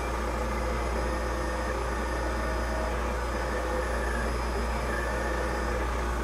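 Epilog laser cutter at work, with the steady rush and hum of its fume extraction blower and fans. Short stop-start whines come from the stepper motors driving the cutting head.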